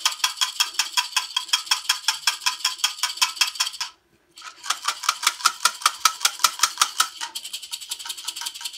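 Aroma beads rattling inside a lidded glass jar that is shaken rapidly by hand, a quick even rattle many times a second. It stops for a moment about four seconds in, then resumes and turns quieter near the end. The beads are freshly coated in fragrance oil and mica, and the shaking dries them so that they stick to the glass.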